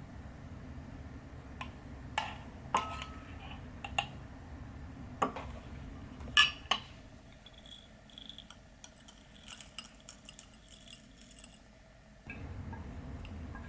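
Scattered light clinks and knocks of small hard objects being handled, the loudest a little past the middle. Then a few seconds of faint, fine crackling.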